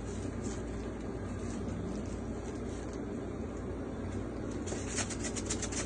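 Steady hum of kitchen machinery. Near the end comes a quick, rapid rattle of sesame seeds shaken from a shaker over sushi rice spread on nori.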